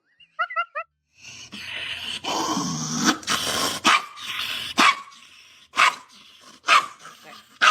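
A dog gives four quick high yips, then a loud rough stretch of vocalising, then single sharp barks about once a second.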